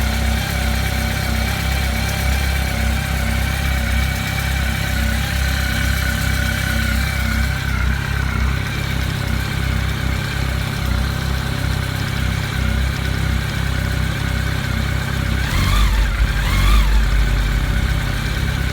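Honda CB1300's liquid-cooled inline-four engine idling steadily, with two quick rises and falls in pitch near the end: short throttle blips.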